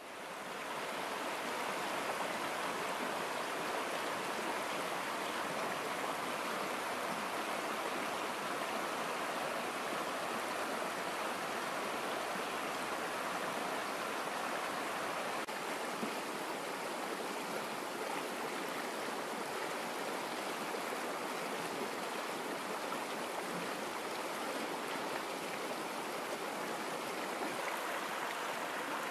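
A fast, muddy stream rushing over rocks in a steady, unbroken wash of water noise, fading in over the first second.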